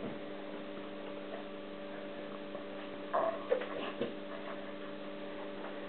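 A steady low electrical hum made of several even tones, with a few faint brief sounds about three and four seconds in.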